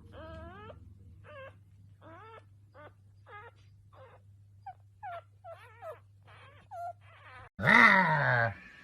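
A pet animal giving a run of short, high, gliding whining calls, then one loud, long wailing call that falls in pitch near the end.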